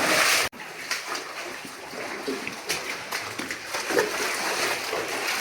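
Water splashing and sloshing, with small knocks and scuffs, as of people moving through shallow water in a cave passage. The sound breaks off sharply about half a second in, then carries on.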